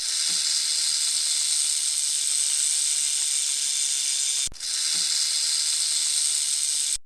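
A snake hissing: a long, steady, high-pitched hiss, broken briefly about four and a half seconds in and then resumed.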